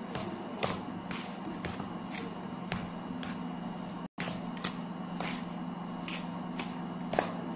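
Metal spoon scraping and tapping against a stainless steel bowl while stirring steamed grated tapioca with grated coconut and sugar, in short strokes about twice a second, over a steady low hum.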